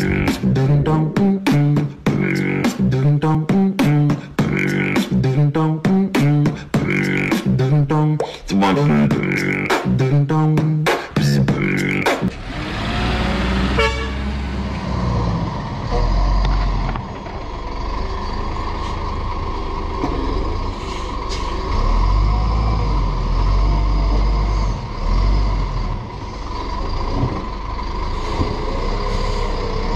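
Beat-driven intro music for about the first twelve seconds, cutting off suddenly. Then an automated side-loader rubbish truck's diesel engine runs with a steady low rumble and a steady hydraulic whine, with a few knocks, as it collects wheelie bins.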